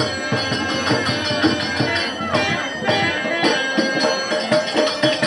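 Live Indo-Fijian folk music: a dholak drum beating a quick, steady rhythm under held, reedy melody tones.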